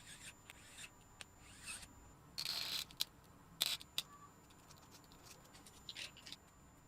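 Small parts being handled: a series of short rubbing and scraping sounds, the longest about half a second, with a few sharp light clicks.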